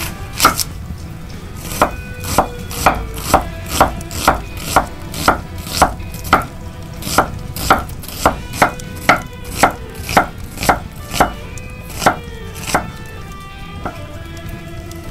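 Chef's knife slicing a white onion on a wooden cutting board: a steady run of crisp cuts, each ending in a knock of the blade on the board, about two a second, stopping near the end.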